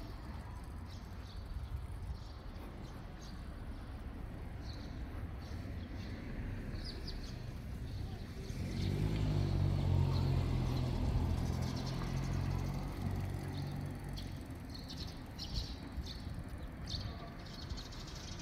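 Low traffic hum with small birds chirping now and then; about halfway through, a passing motor vehicle's engine grows louder for several seconds, then fades.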